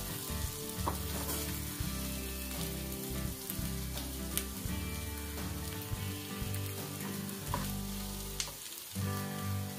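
Snail meat and chopped coriander sizzling in garlic butter in a frying pan, a steady frying hiss. Scattered sharp clicks come from a wooden spatula stirring against the pan.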